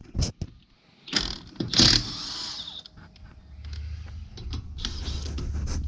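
Impact wrench running in short bursts to spin lug nuts off a spare donut wheel, with clicks and clanks of the tool and nuts. A low steady rumble builds near the end.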